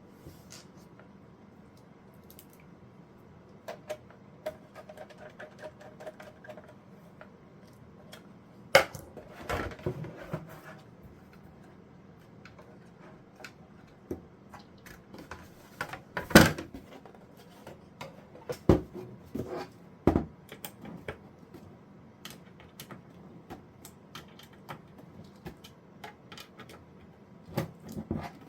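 Irregular clicks, taps and knocks of small hard parts being handled, as when working on an NVR recorder's casing, screws and hard drive. A few louder knocks come about nine, sixteen and nineteen seconds in.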